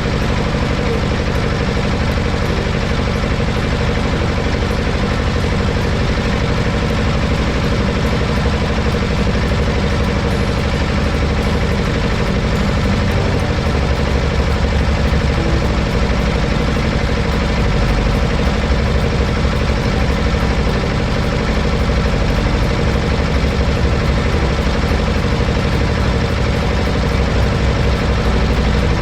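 An engine running steadily at an even speed, with a low rumble that swells a little about halfway through.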